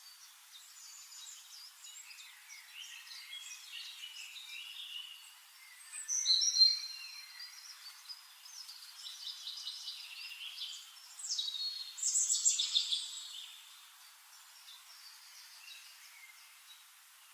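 Several songbirds singing and chirping in a forest, with quick trills and twitters. The loudest calls come about six seconds in and again from about eleven to thirteen seconds in.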